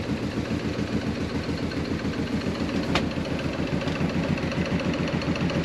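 Fishing boat's engine idling with a steady, even throb. A single sharp click comes about three seconds in.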